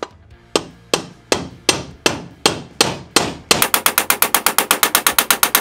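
Hammer blows driving a needle-roller bearing into a motorcycle's swinging arm: about eight sharp, evenly spaced strikes, then a fast, even run of lighter taps at about eight a second until the bearing is seated against the other bearing.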